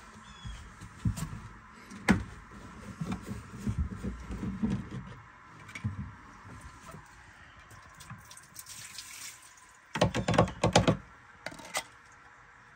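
Tools and metal parts knocking and clunking as the raw water strainer of a PCM marine engine is opened to drain it, with water running out. About ten seconds in comes a louder, quick run of rattling clicks.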